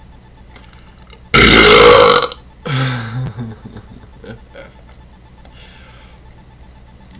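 A person burping deliberately: one very loud, long belch about a second and a half in, followed right after by a second, quieter and shorter belch.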